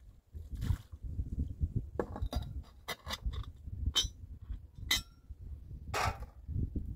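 Dishes being washed by hand in a plastic basin: a series of sharp clinks and knocks, a couple of them ringing briefly, then a short scrape near the end.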